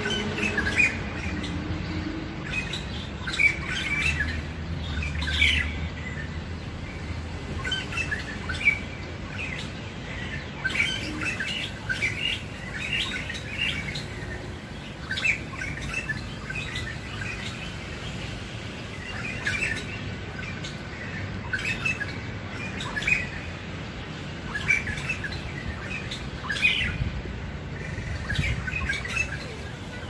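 A shrike (pentet) singing a long, unbroken run of short, high chirping notes.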